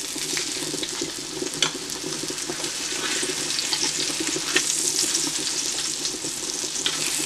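Flour-dredged pork chops sizzling steadily in hot butter and olive oil in a stainless steel pan as they are turned over, with a few sharp clicks of metal tongs against the pan.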